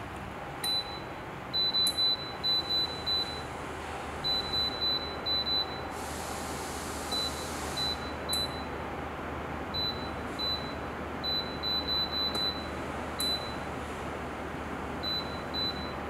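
Touch control panel of a wall-mounted electric bathroom space heater beeping as its buttons are pressed: short high beeps, often in quick runs of three to six. Underneath is the steady rush of the heater's fan blowing air.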